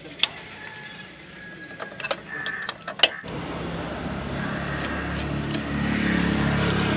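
Metal tool clicks and clinks on the twin-spark Bajaj Discover's cylinder head as its second spark plug is unscrewed. About three seconds in, a steady low engine hum sets in and grows slightly louder.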